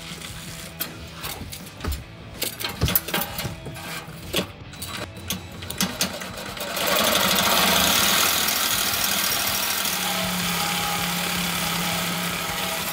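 Reciprocating saw cutting through a truck's steel exhaust pipe at the weld just ahead of the stock muffler. Scattered knocks at first, then about seven seconds in the saw settles into a loud, steady cut that runs for about six seconds.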